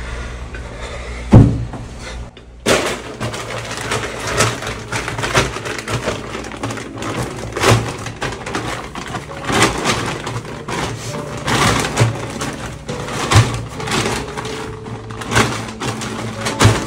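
Crinkly plastic packaging rustling and items clattering on shelves as they are handled, with one loud knock about a second and a half in.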